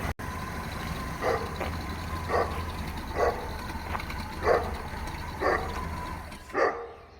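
A dog barking six times, about once a second, over the low steady rumble of an idling engine. The rumble cuts off near the end.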